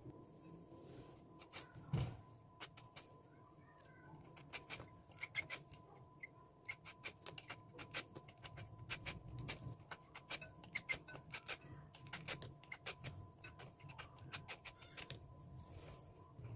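Vegetable peeler scraping the skin off a red-skinned potato in quick, repeated short strokes, with a single knock about two seconds in.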